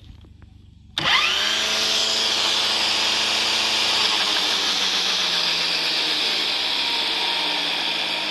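Battery-powered electric brush cutter switched on by its trigger about a second in: the motor spins up in under a second to its single, top speed and runs on as a steady whine with its circular blade turning free, not cutting.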